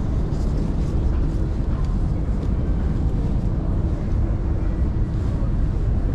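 Railway station concourse ambience: a steady low rumble of crowd and station noise.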